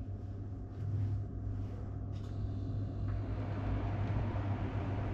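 A steady low hum with a rumbling noise under it, growing a little louder about a second in.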